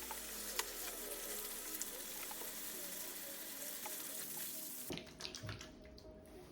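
Water running from a salon shampoo-station shower head, cutting off suddenly about five seconds in.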